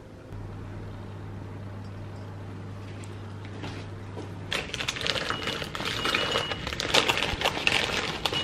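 A low steady hum, then from about halfway through a crinkling plastic crisp packet and paper bag, with crisps rattling as they are tipped into small ceramic bowls.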